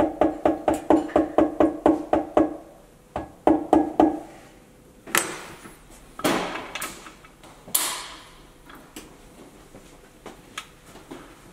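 A red soft-face mallet tapping rapidly down in a cylinder bore of a Subaru EJ22 aluminium engine block, about five taps a second, each tap with a short hollow ring. The tapping stops about two and a half seconds in and comes back for a few taps around three to four seconds, then a few brief louder handling noises follow.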